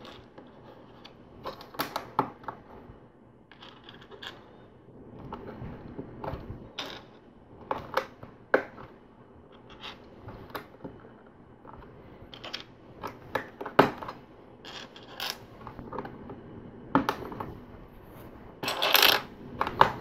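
LEGO plastic bricks and plates clicking and snapping as they are pressed together and handled, with small parts tapping on the table. A denser, louder plastic rattle comes about nineteen seconds in.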